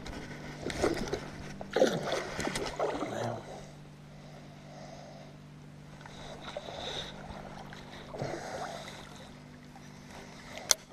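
Water splashing and sloshing against the side of a small aluminium jon boat, with rod-handling and knocking noises, over a steady low hum. A single sharp click comes near the end.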